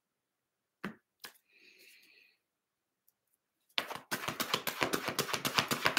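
Tarot deck being shuffled by hand: two light taps of the cards about a second in, then, from near the end, a fast, even run of cards flicking against each other.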